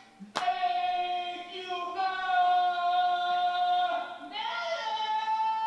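A woman singing off key into a microphone, holding long drawn-out notes with a sharp clap just before the first one. Her voice moves to a higher held note about four seconds in.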